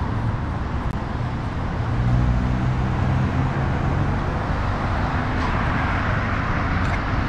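Street traffic: a steady road rumble of cars driving past, with one vehicle's engine hum standing out for a few seconds from about two seconds in.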